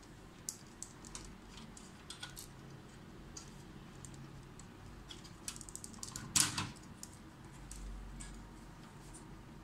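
Hands handling the plastic parts and wiring of a disassembled HP LaserJet P1102 laser printer: scattered small clicks and taps, with a louder clatter about six seconds in.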